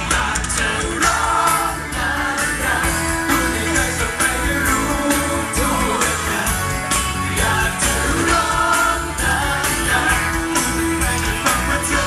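Male vocalists singing a pop-rock medley into microphones over a live band through a stage PA, with drums and cymbals keeping a steady beat.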